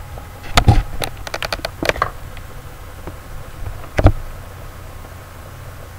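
Handling noise from a webcam being moved and tilted: a sharp knock about half a second in, a quick run of clicks and rattles between one and two seconds, and another knock at about four seconds, over a steady low hum.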